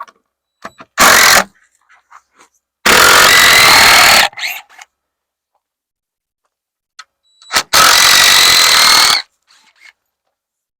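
Handheld power tool run in three bursts: a short blip about a second in, then two longer runs of about a second and a half each, with a steady whine.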